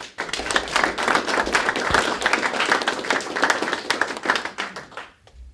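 Small audience applauding, the clapping starting abruptly and dying away near the end.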